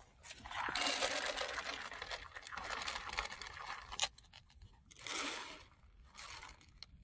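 Dry granular bait poured from a bowl into the plastic hopper of a bait boat: a rattling rush of grains lasting about three seconds, then a click and two shorter pours.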